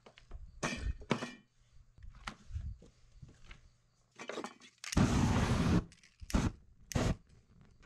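Aerosol spray-paint can blasts lit into flame: a loud hissing whoosh about a second long about five seconds in, then two shorter bursts. A few brief, quieter hisses come earlier.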